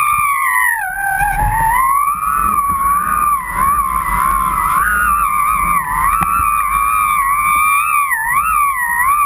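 Kite lines humming in the wind: one unbroken whistling tone that wavers up and down in pitch, over a low wind rumble on the microphone.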